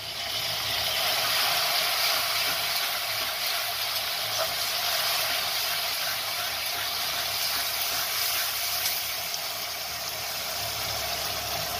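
Garlic paste frying in hot oil with browned onions in a steel kadhai. It sizzles as its moisture boils off, surging as the paste drops in and then holding steady.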